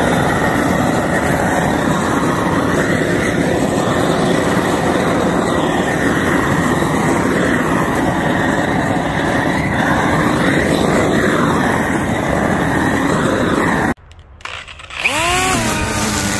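Dremel rotary tool with an aluminum-working burr grinding wood, a loud, steady rough grinding noise that stops suddenly about 14 seconds in. Near the end the tool spins up again with a rising whine that settles to a steady pitch.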